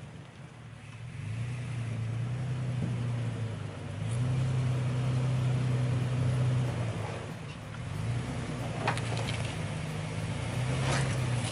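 Toyota FJ Cruiser's 4.0-litre V6 engine revving in long pulses of throttle as it crawls over boulders, with a few sharp knocks of the truck on rock near the end.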